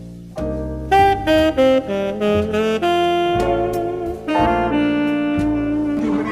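Background music: a saxophone melody over piano and bass in a jazzy style.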